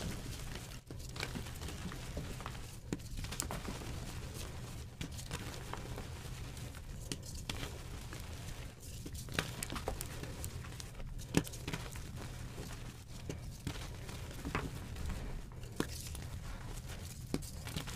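Reformed gym chalk blocks being crushed and crumbled in bare hands: a continuous dry crunching and crackling of powdery chalk, with frequent sharp snaps as chunks break apart.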